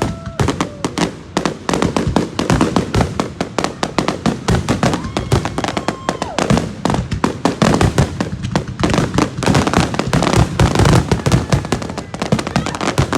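Consumer fireworks going off in a dense, continuous barrage: many sharp bangs and crackles every second.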